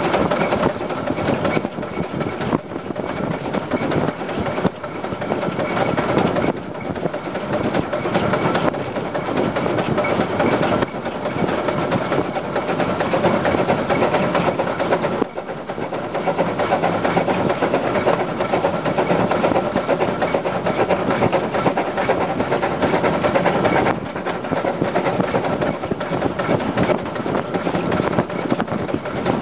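Peckett industrial steam locomotive running on the line with its train: continuous rail and running noise, with a few brief dips in level.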